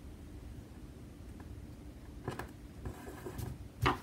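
Quiet room tone, then soft paper rustles and light taps as a small paper star sticker is laid and pressed onto a planner page, with one sharper tap near the end.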